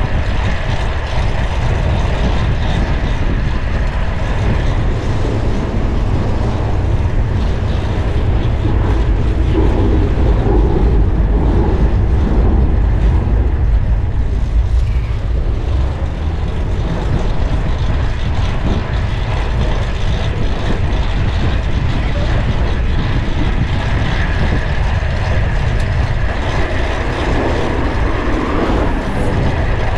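Steady wind rush on the microphone of a bicycle being ridden fast, with city traffic around it.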